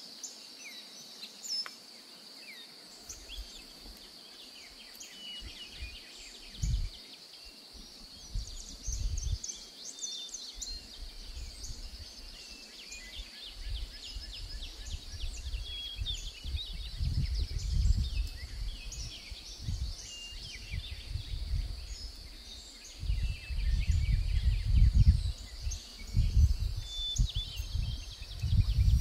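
Outdoor nature ambience: small birds chirping and trilling over a steady high insect hum, with gusts of wind rumbling on the microphone, strongest in the second half.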